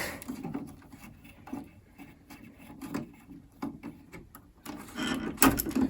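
Screwdriver scraping and clicking on the screws of an iMac G3's video cable connector, with light handling noises and a louder cluster of knocks about five seconds in.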